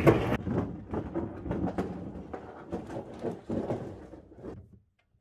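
Aluminium Gregor boat hull scraping and grinding across gravel as it is dragged away, stopping shortly before the end.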